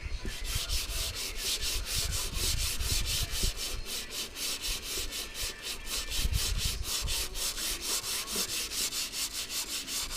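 Sandpaper rubbed by hand over a car body panel in quick, even back-and-forth strokes, about five a second.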